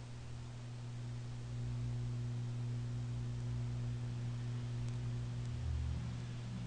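Steady low electrical hum, mains hum with a few overtones, with a couple of faint ticks about five seconds in.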